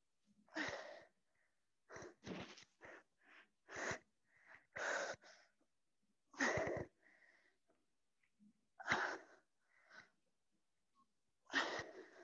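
A woman breathing hard from exertion: about a dozen short, forceful breaths, coming in uneven clusters.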